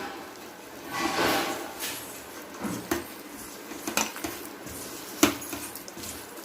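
Minced chicken kofta mixture being mixed in a bowl: a soft swishing about a second in, then a few sharp clinks and knocks of the bowl, the loudest about five seconds in.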